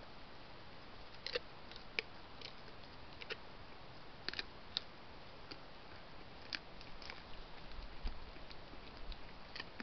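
A doe deer crunching and chewing apples: irregular sharp crunches over a steady hiss.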